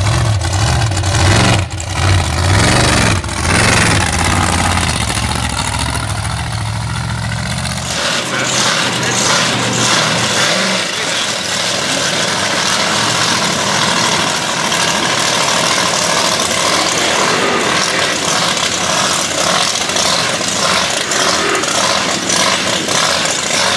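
A 2600-horsepower mud-bogging mega truck's engine running with a deep, heavy idle, revved briefly a few times in the first few seconds. About eight seconds in the sound changes abruptly to a thinner, noisier engine running steadily, without the deep bass.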